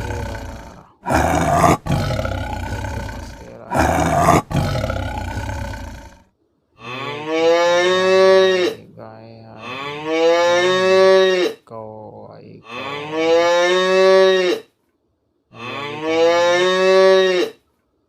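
A lion roaring in several rough, noisy roars, then a cow mooing four times, each moo about two seconds long with pitch rising and then falling.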